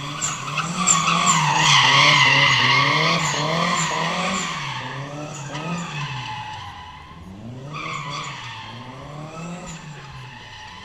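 A drift car sliding: its engine revs up and down over and over on the throttle while its tyres squeal. Loudest about two seconds in, then fading as the car draws away.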